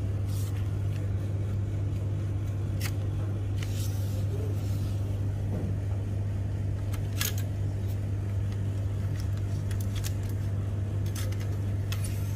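Steady low hum, with scattered light clicks and taps from the plastic and metal parts of a printer fuser unit being handled.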